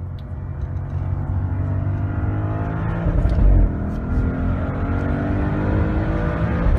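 Audi RS6 Performance's twin-turbo V8, with a sport exhaust, heard from inside the cabin under full acceleration. The revs rise steadily in second gear, break off in a short, loud, rough moment at the upshift to third about three seconds in, then climb again.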